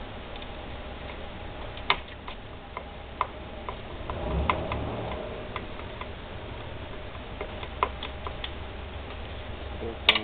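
Irregular sharp metallic clicks and clinks of a hand tool working a fastener on a Piaggio Ciao moped's engine mounting, with a louder cluster of clicks near the end.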